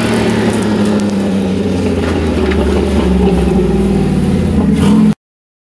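Jeep Wrangler YJ's engine running hard under throttle as it drives, a steady note that climbs a little near the end. The sound cuts off suddenly about five seconds in.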